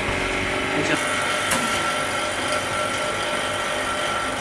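Edge vacuum laminating machine running after its start button is pressed, a steady mechanical hum as its pump draws the chamber down to vacuum, with a sharp click about a second and a half in.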